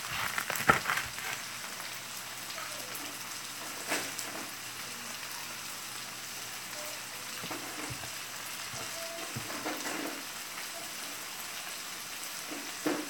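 Breakfast hash of diced potatoes and sausage sizzling steadily in a frying pan. A few sharp knife taps on a wooden cutting board come through, the loudest about a second in and others around the middle and near the end.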